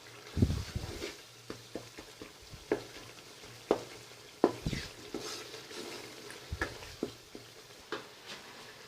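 A spoon stirring and mashing a tomato and spice masala in a cooking pot, knocking against the pot at irregular intervals, over a faint sizzle of frying.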